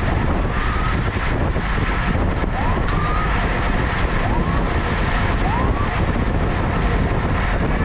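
Wind rushing steadily over the microphone of a camera on a bicycle riding at speed in a racing pack. Three short rising squeals stand out briefly in the middle.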